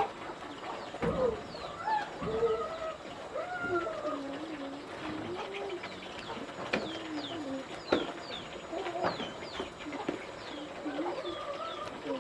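Farm birds calling: low wavering fowl calls keep going throughout, with quick high chirps from small birds over them. A few sharp knocks stand out, the loudest about eight seconds in.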